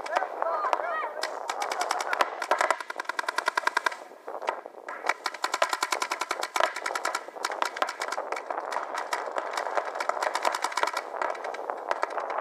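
Several paintball markers firing in long, rapid strings of shots, with a brief lull about four seconds in.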